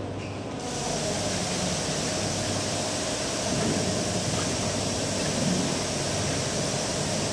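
Steady machine whir and hiss that comes up just under a second in, with a faint steady tone running through it.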